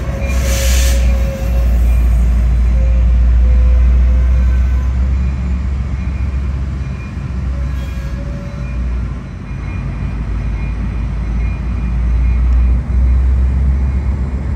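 Sounder commuter train of bilevel coaches rolling along the platform, heard from inside a car: a loud, steady low rumble, with a brief hiss in the first second.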